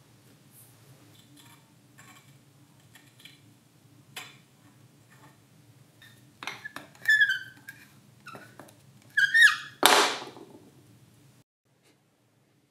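A rusty cast-iron hand plane, a Victor by Stanley No. 1104, being handled: faint metal clicks, then a run of short, high squeaks of rusted metal parts, ending in one loud, sharp scrape about ten seconds in.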